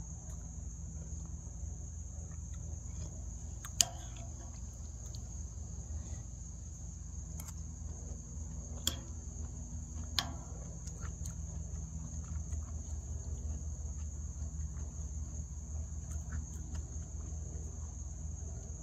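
Steady, high-pitched chorus of insects singing without a break, over a low steady hum. A metal spoon clinks sharply against the ceramic soup bowl a few times, loudest about four seconds in.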